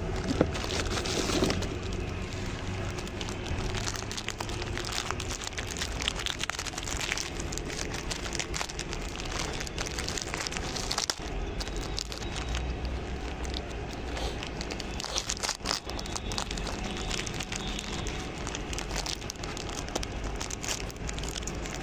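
A dog eating from a plate at close range: a continuous run of small crackling clicks over a low rumble.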